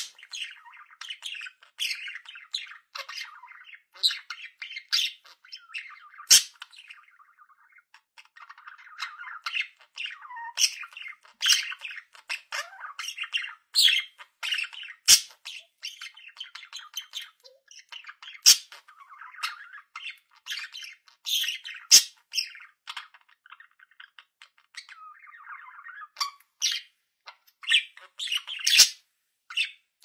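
Budgerigar chattering: a rapid, busy warble of high chirps, short squawks and sharp clicks, broken by a few brief pauses.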